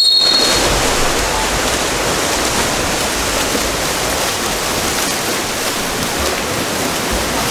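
Steady wash of splashing water from water polo play in the pool, with a referee's whistle blast that cuts off about half a second in.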